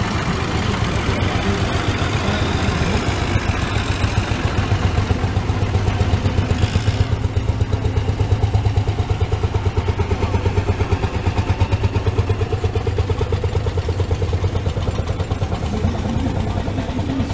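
Vintage tractor engine running as the tractor drives slowly past, a low, evenly pulsing beat that grows loudest around eight seconds in and then fades as it moves away.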